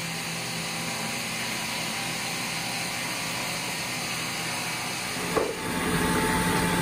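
Water-cooled stone-cutting saw running steadily with a low hum. A single knock comes about five seconds in, and the running noise then grows louder.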